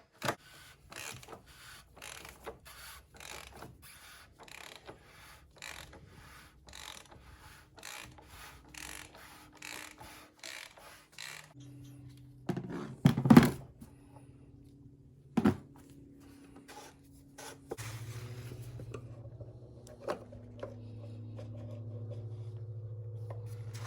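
Wrench working the plastic oil filter housing cap loose: a long run of evenly spaced clicks and scraping, then two loud knocks about halfway through. A steady low hum sets in near the end.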